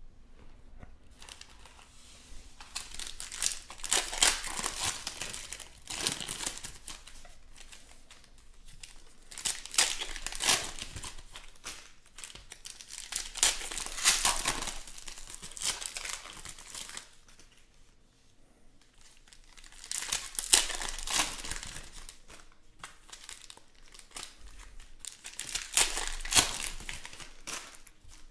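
Foil trading-card pack wrappers being torn open and crinkled by hand, in about five bouts a few seconds apart.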